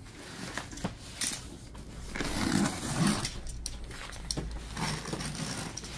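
Cardboard boxes being handled and opened: irregular rustling and scraping with scattered light knocks and clicks.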